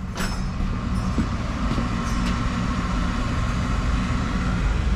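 Home heating oil burner running, a steady low rumble with a steady whine above it.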